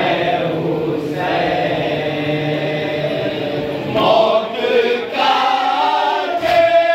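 Men's voices chanting a nauha, a Shia lament, together in chorus. The chanting gets louder and clearer about four seconds in.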